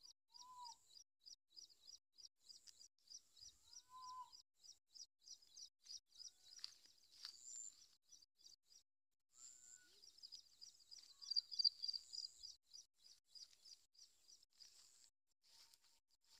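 Faint outdoor field ambience: a high, even chirping repeated about four or five times a second, breaking off briefly a little past halfway, with a few short lower calls over it.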